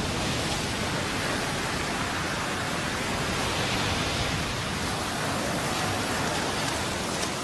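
Surf breaking and churning over the shore: a steady rush of white water with no letup.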